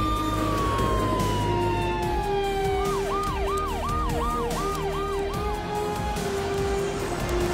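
Emergency-vehicle siren: one long wail that falls slowly in pitch, then about seven quick yelps, each dropping from high to low, that stop a little past halfway. Background music plays underneath.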